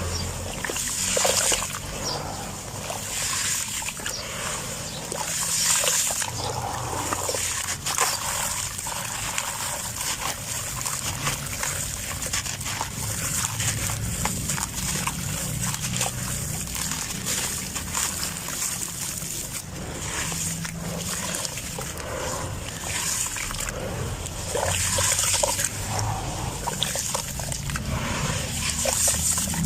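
Gritty sand cement being crumbled and crushed: a dense run of small crunches and crackles with trickling grains, swelling into louder crumbling every few seconds.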